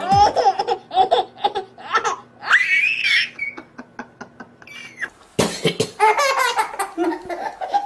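Baby laughing in short bursts, with a high squeal about three seconds in. After a quiet moment, more laughter starts suddenly about five seconds in.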